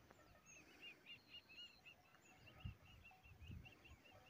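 Faint bird calling in a quick series of short, high, arched notes, about five a second. Two soft low thumps come in the second half.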